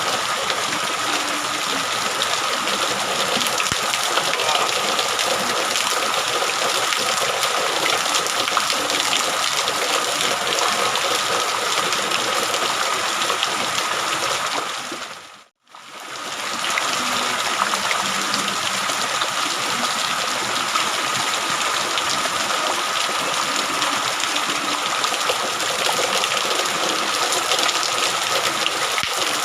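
Heavy rain pouring down as a steady rush. Partway through it fades out briefly to silence and then comes straight back.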